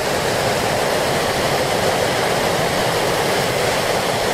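A small waterfall tumbling over granite boulders, white water rushing in a steady, unbroken roar close by.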